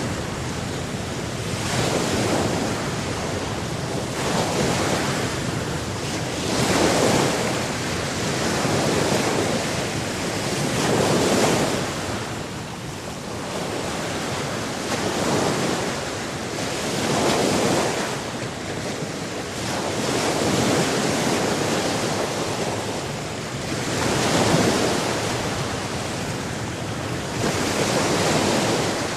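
Sea surf: waves washing in over a constant hiss of water, the sound swelling and easing every two to three seconds.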